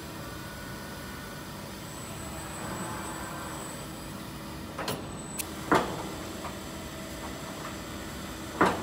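Steady machinery hum of a factory hall, broken in the second half by a few sharp knocks, the loudest about three-quarters of the way through and another near the end.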